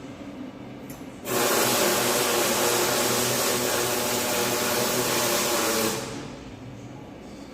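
Electric welding arc sizzling in one steady run of about five seconds, starting sharply just over a second in and cutting off sharply about a second before the end, over a lower background hum.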